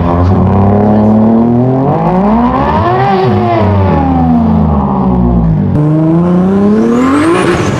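A person imitating a car engine with their mouth into a microphone, the revs climbing to a peak and falling away. About six seconds in it switches to a real Toyota Supra (A80) straight-six revving up, with a high whistle rising along with it.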